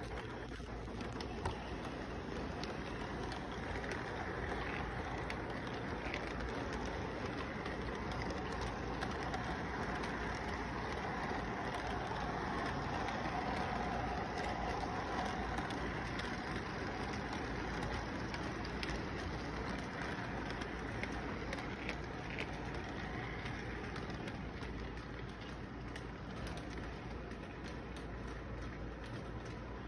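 Electric model train rolling along its track, a steady rumble of wheels and motor that grows louder as the cars pass close by about halfway through, then fades.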